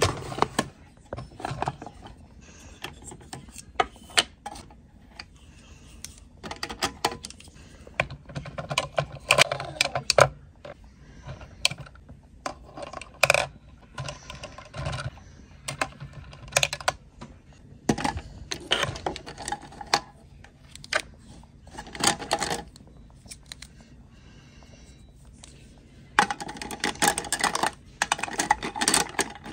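Irregular clicks, taps and crinkling rustles of small objects and packaging being handled, growing into a denser stretch of crinkling near the end.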